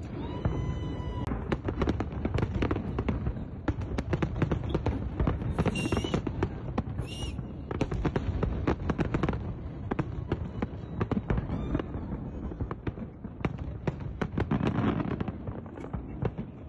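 Fireworks going off in a dense, continuous run of pops and crackling bangs, with a few brief high whistles.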